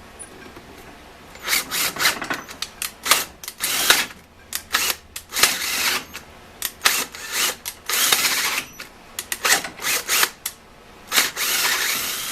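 Electric drill run in short stop-start bursts, enlarging the too-small hole in a Model T pedal with the next bit size up; it starts about a second and a half in.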